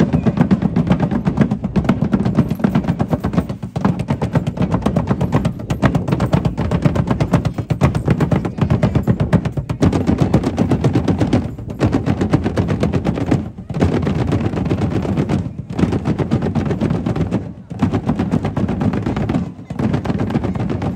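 A street parade drum band playing a fast, driving rhythm of rapid drum hits, with a short break about every two seconds.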